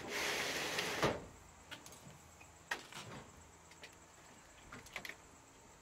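Steel ridge-cap trim scraping as it is slid over the roof steel for about a second, followed by a few light knocks and clicks as it is set in place.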